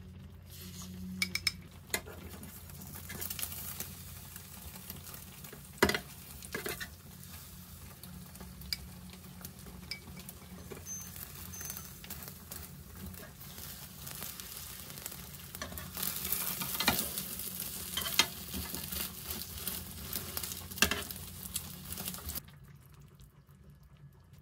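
Beaten egg sizzling in a frying pan as a rolled omelette is cooked, with a wooden utensil knocking against the pan now and then. The sizzling drops away about two seconds before the end.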